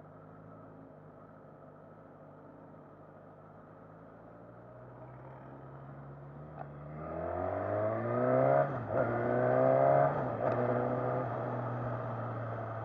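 2019 Suzuki Katana's inline-four engine, heard from the rider's seat, running low and quiet at first, then revving up hard under acceleration about seven seconds in. The rising note is cut twice by upshifts before it settles to a steady cruise near the end.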